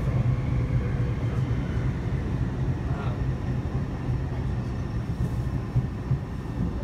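Taipei Metro C301 train running on the line, with a steady low rumble.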